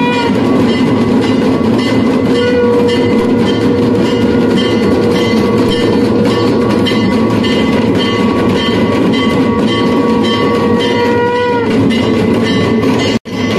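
Temple puja accompaniment during the incense offering: rapid, even drum-and-bell clatter with a long steady horn-like note held for about nine seconds over it. The sound cuts out for an instant near the end.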